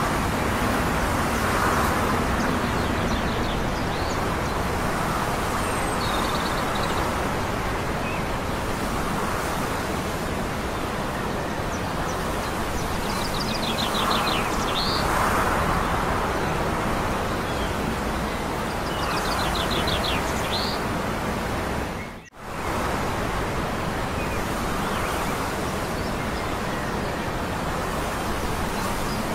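Steady rushing outdoor noise with birds chirping in short trills a few times. The sound cuts out for a moment about two-thirds of the way through.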